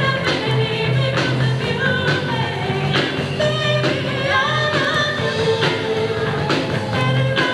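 Rock band playing live: electric guitar, bass and drums with a lead singer, the drums keeping a steady beat under the vocal line.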